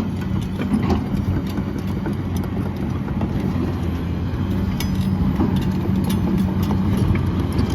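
XCMG XE210CU hydraulic excavator's 6.7-litre Cummins diesel engine running at a steady speed, with a few faint clicks.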